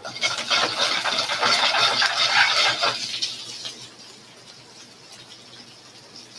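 Baby spinach, julienne carrots and shiitake mushrooms sizzling in a hot stainless sauté pan as it is shaken over the burner, with the scrape and clatter of the pan. The sizzle is loud for about three seconds, then dies down while the vegetables are tossed.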